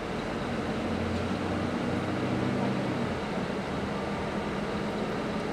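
Steady low engine hum and rumble heard inside a moving airport shuttle bus.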